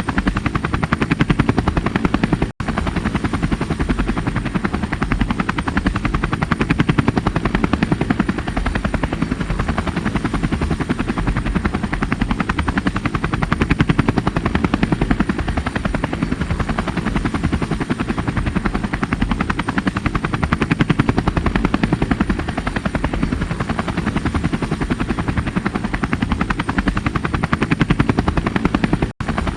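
Helicopter rotor chopping in a fast, even beat, with a thin high whine held steady over it. The sound cuts out for an instant twice, about two and a half seconds in and near the end.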